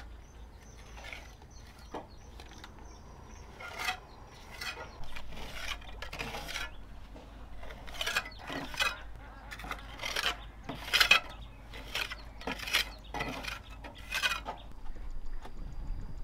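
A steel trowel scraping and pressing cement mortar against a brick wall, in a run of short scraping strokes about one or two a second that start about four seconds in.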